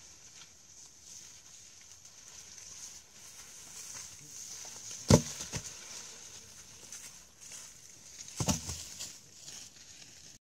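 Wooden poles dropped onto dry ground: a sharp, loud thud about five seconds in and a second clatter about three and a half seconds later, with footsteps rustling through dry leaves and a steady high hiss behind.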